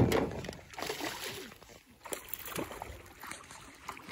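Lake water splashing and sloshing at the side of an aluminium boat as a landing net is worked in the water to land a hooked fish, with a loud thump at the very start.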